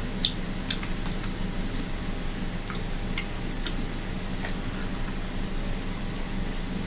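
Fingers mixing rice and curry on a plate: soft squishing with a few sharp clicks of fingers against the plate, the loudest about a quarter second in, over a steady background hum.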